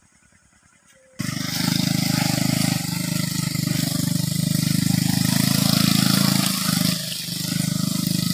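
Small motorcycle engine running under load as the bike hauls baskets of oil palm fruit through mud. It cuts in abruptly about a second in after near silence and eases off briefly near the end.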